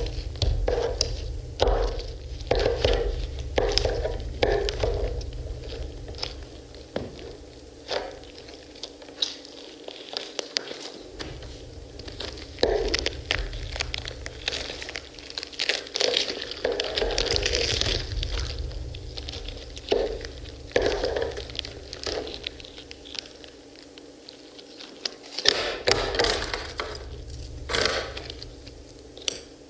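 Close-miked pomegranates being stabbed, pried and torn apart by hand, with a metal pick and scissors: a dense run of wet cracks, crunches and squishes of rind and bursting seeds. A low steady hum runs underneath and drops out twice.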